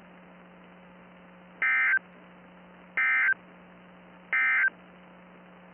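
Emergency Alert System end-of-message signal: three short, shrill digital data bursts (SAME 'NNNN' tones) about 1.4 seconds apart, marking the end of the alert. A faint steady low hum lies underneath.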